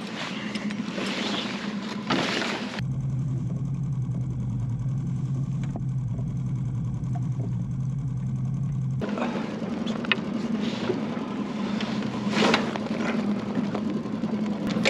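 Small outboard motor running steadily on the dinghy, a low hum under wind and water noise, with a few sharp knocks.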